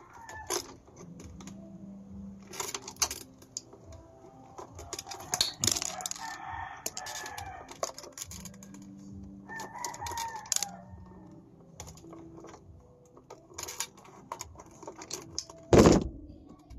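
A rooster crowing twice, once about five seconds in and again about ten seconds in, over scattered small clicks from pliers working electrical wire. A loud thump comes near the end.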